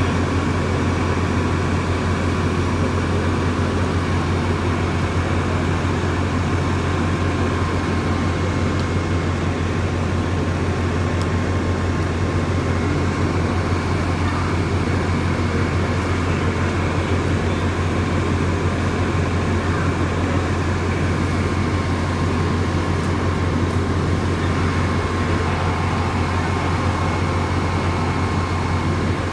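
Fire apparatus diesel engines running steadily: a constant low drone with a faint, high, unchanging whine above it.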